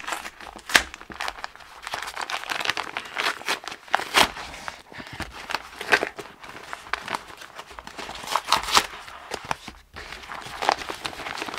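Padded paper mailing envelope being torn open and handled: irregular crinkling, rustling and tearing of stiff paper.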